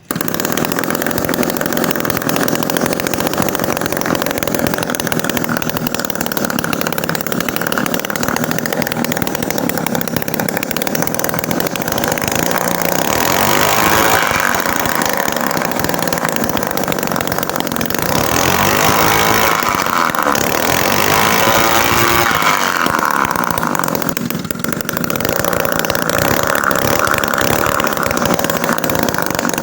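Small homemade two-stroke engine, built from refrigerator compressor parts, running under test. Its speed rises and falls a few times around the middle, then settles back to a steady run.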